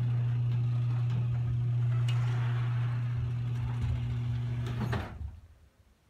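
Craftsman 1/2 horsepower chain-drive garage door opener running as it raises the door, a little bit loud: a steady motor hum with clicking and rattle. It stops with a short clunk about five seconds in, as the door reaches the fully open position.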